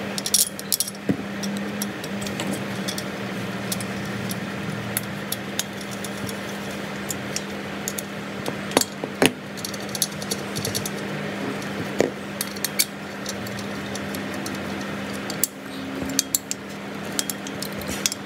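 Small metal clicks and ticks of screws and an Allen key being fitted and turned into a kart engine's starter reduction gear (Bendix) cover, scattered irregularly over a steady low hum.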